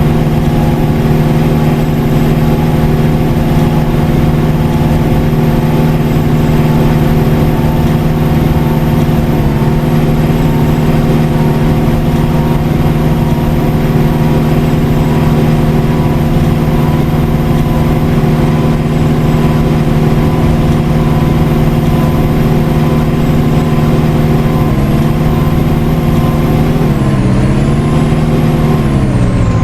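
Double-decker bus engine and drivetrain running steadily at a constant pitch. Near the end the pitch falls as the bus slows, then starts to rise again.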